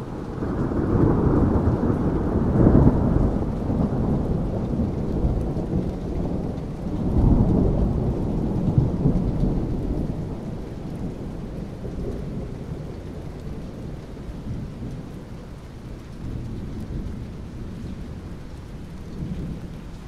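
Rolling thunder: a long low rumble that swells to a peak about three seconds in, surges again around seven seconds, then slowly dies away into fainter, uneven rumbling.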